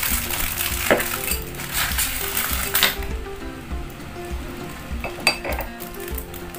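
Plastic bag crinkling and tearing as a table-leg mounting plate is unwrapped by hand, dense for the first three seconds and then dying down, with a couple of light clicks about five seconds in as the plate is handled. Soft background music with steady low notes runs underneath.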